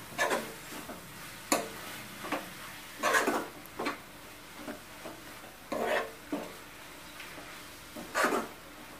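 Steel spoon stirring and scraping grated beetroot palya around a nonstick kadai, in irregular strokes about a second apart.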